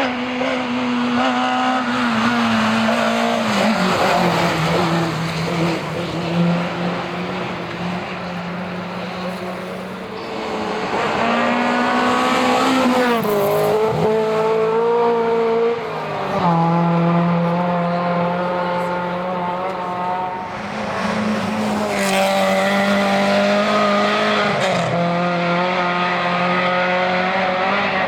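Historic rally car engines working hard on a special stage, revving up through the gears. The pitch drops sharply at each shift or lift, several times over.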